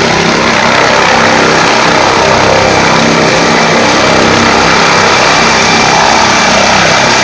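Helicopter lifting off at full power: a loud, steady rush of rotor and engine noise with a thin, high, steady whine above it.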